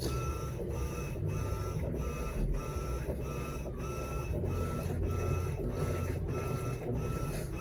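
Electrolux LTE12 top-loading washing machine running its wash cycle, its agitator motor humming with a whine that breaks off and returns about twice a second as the agitator swings back and forth.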